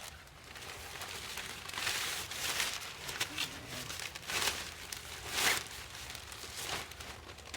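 Tent fabric and its carrying bag rustling and crinkling in a series of short bursts, the loudest about five and a half seconds in, as the folded pop-up tent is packed into the bag.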